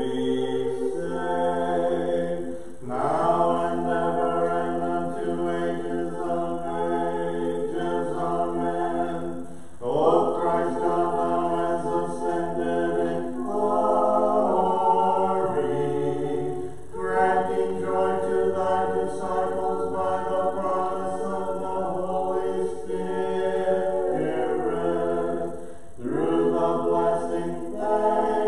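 A cappella church choir singing Orthodox vespers chant in held chords, phrase after phrase, with a brief break between phrases.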